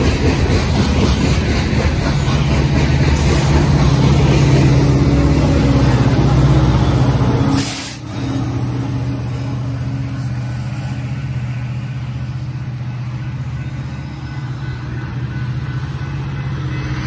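A loaded BNSF coal train passing close by: hopper cars rumbling over the rails, then a diesel locomotive near the train's rear with its engine drone loudest in the middle. The sound drops off suddenly about eight seconds in, leaving a quieter steady rumble from the receding train.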